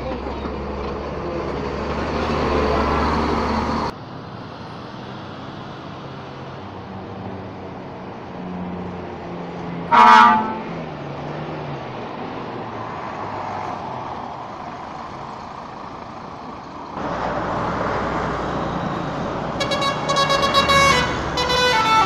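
Buses driving past, their engines and road noise rising and falling, with one short horn blast about halfway through. Near the end a bus's multi-tone telolet horn starts to play its series of notes.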